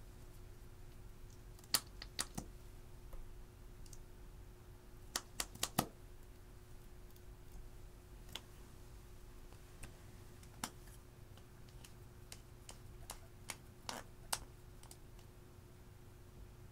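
Plastic makeup packaging being handled: scattered sharp clicks and taps of tube caps and cases, with a quick run of four about five seconds in, over a faint steady hum.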